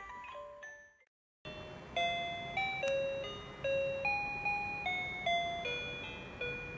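Electronic lullaby melody from a crib mobile's music box unit: a simple tune of clear, chime-like single notes. It fades out about a second in, breaks off into a short silence, and a different tune starts.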